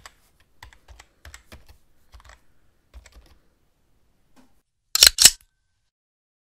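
Keyboard typing sound effect: light, irregular key clicks while a caption types itself on screen, stopping about three and a half seconds in. About five seconds in come two sharp, much louder clicks in quick succession.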